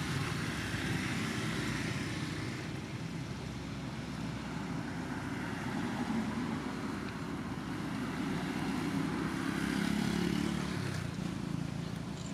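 Low, steady engine noise of passing road traffic, swelling in the middle and again near the end.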